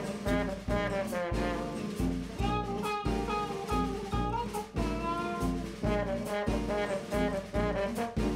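Background jazz music with brass horns over a steady beat.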